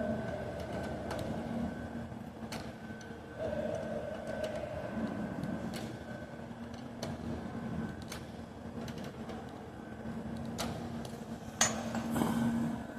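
A steady mechanical hum with a constant low tone and a fainter higher tone, broken by scattered sharp clicks and knocks, the loudest about eleven and a half seconds in.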